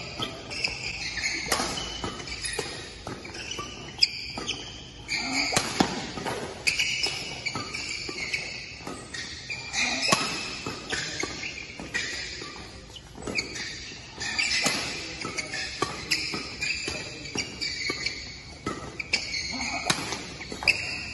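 Badminton rally: sharp racket strikes on the shuttlecock every second or two, with thuds and squeaks of players' shoes on the court mat between them.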